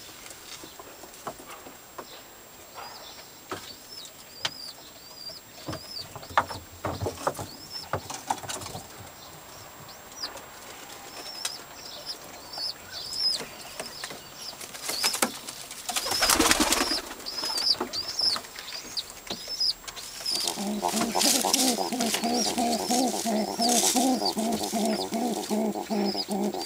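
Domestic tumbler pigeons in a loft. Short high chirps repeat throughout, with a burst of wing flapping a little after the middle. In the last several seconds a pigeon coos in a fast, evenly pulsing series of low notes.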